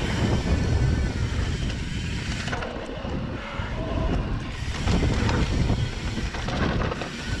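Mountain bike running fast down a dirt singletrack: wind rushing over the bike-mounted microphone and tyres rolling over the dirt, with knocks and rattles from the bike over bumps, twice standing out about two and a half and five seconds in.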